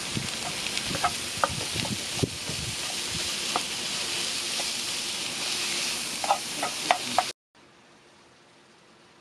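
Ground beef sizzling in a frying pan while a slotted spatula stirs it, its edge clicking and scraping against the pan. The sizzle cuts off suddenly about seven seconds in, leaving only a faint hiss.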